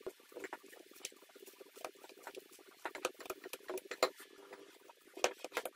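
Spatula folding thick chocolate cake batter in a glass bowl: irregular soft clicks, scrapes and wet slaps as it strikes the glass and turns the batter.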